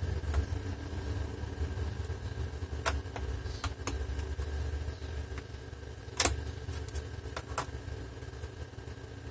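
Steady low engine hum of a digger, partly filtered out, under a handful of light clicks as very small laptop screws are handled and fitted. The sharpest click comes about six seconds in.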